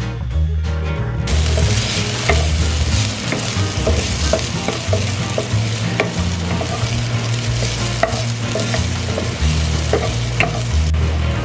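Julienned ginger sizzling in a hot metal pan, coming in about a second in. A wooden spatula scrapes and knocks against the pan as it stirs.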